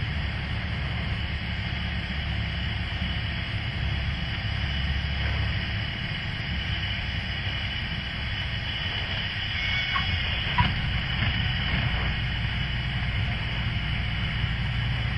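Cessna 172 Skyhawk's engine and propeller droning steadily at low power during the landing, with a single short click about ten and a half seconds in.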